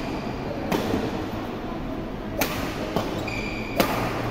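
Badminton rally: a few sharp pops of rackets striking the shuttlecock, spaced about a second apart, the loudest near the end, over the steady background of a large sports hall.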